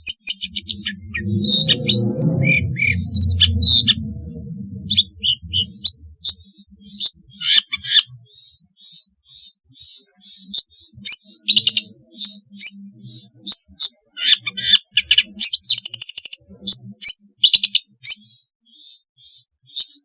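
Long-tailed shrike singing: rapid runs of short, sharp chirps and harsh calls, with a fast buzzy trill about sixteen seconds in. A low rumble lies under the song for the first few seconds.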